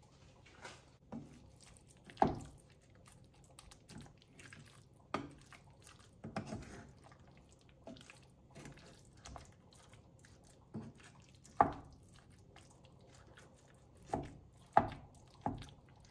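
Wooden spatula stirring and mashing soft boiled sweet potato chunks in a nonstick saucepan: soft squishing with irregular sharp knocks of the spatula against the pan, the loudest about two seconds in, near twelve seconds and near fifteen seconds.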